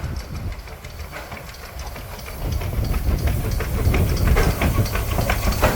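Vale of Rheidol narrow-gauge steam tank locomotive hissing steam as it draws its coaches in, with a low rumble and clicking from the wheels on the rails. It grows louder about two and a half seconds in as the train comes closer.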